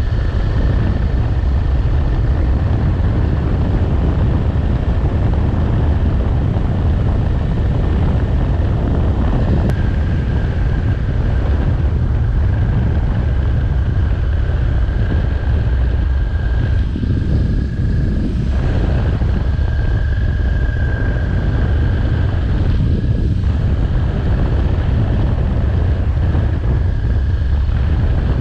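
Kawasaki Ninja 400 parallel-twin motorcycle riding at a steady cruise. Its engine note mixes with wind rushing over the camera microphone. A thin, steady whine sits high above the rumble and drops slightly in pitch about ten seconds in.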